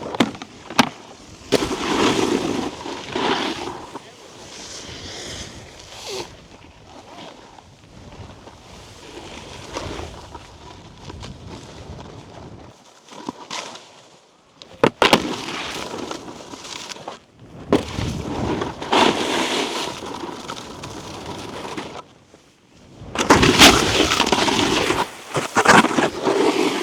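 Snowboard edges scraping over icy, slushy snow in long stretches, with short pauses, and a few sharp knocks about a second in, halfway through and near the end. The loudest scraping comes near the end.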